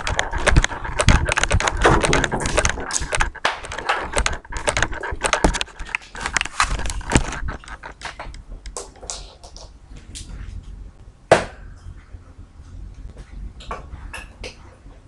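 A dense run of sharp clicks and knocks from things being handled, thinning out after about seven seconds, with one sharp knock about eleven seconds in.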